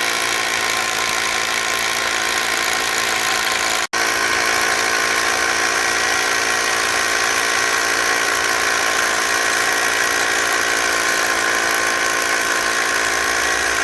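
Power drill running steadily under load, drilling mounting holes, with a momentary break about four seconds in.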